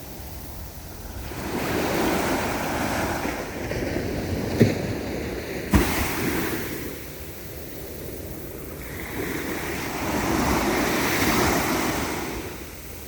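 Ocean waves breaking and washing up the shore, the surf swelling and falling away twice, with two brief thumps near the middle.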